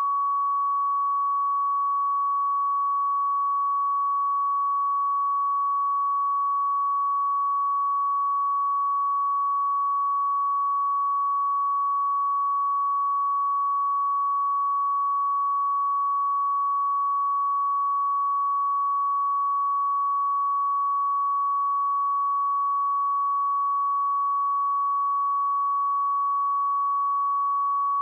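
A pure 1125 Hz sine-wave test tone, held steady at one pitch and level without a break.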